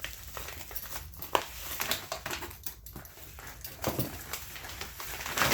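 Comic book shipping packaging being handled and opened by hand: scattered rustles and small clicks.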